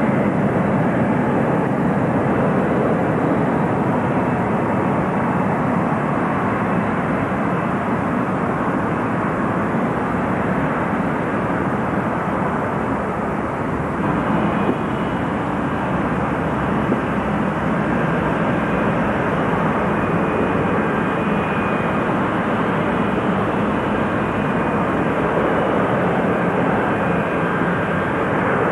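Boeing 747's jet engines producing a steady, loud rumble. About halfway through, a thin high whine comes in as the jet comes nearer.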